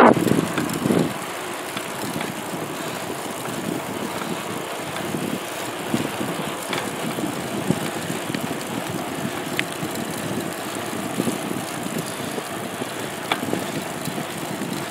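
Steady running noise of a slowly driven vehicle with wind passing the microphone, and a few faint clicks.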